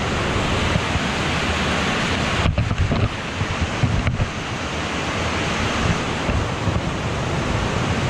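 Steady rushing roar of a waterfall, with wind buffeting the microphone as a fluttering low rumble. The sound briefly drops out twice, around two and a half and four seconds in.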